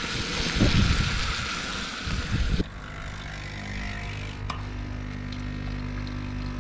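Bacon sizzling in a frying pan on a portable gas camp stove, with some low rumble under it. About two and a half seconds in it gives way to the steady hum of a capsule coffee machine's pump brewing coffee into a steel mug.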